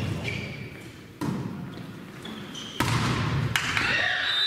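A volleyball struck twice during a rally, about a second and a half apart, each hit echoing in a gymnasium.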